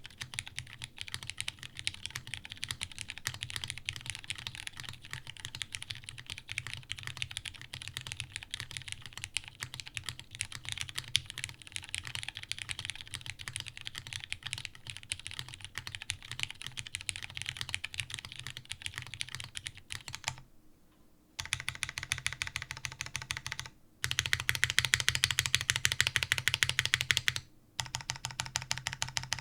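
Custom daji Seis Cero keyboard (plateless tadpole mount, lubed Cherry Hyperglide Brown tactile switches, GMK keycaps) being typed on steadily. After a short break about two-thirds of the way through, its large stabilized keys on lubed TX stabilizers are pressed repeatedly in quick runs, louder than the typing, with brief pauses between runs.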